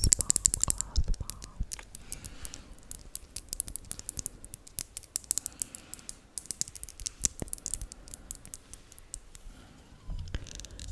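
Fast, irregular tapping with light scratching on a small object: many quick, sharp clicks.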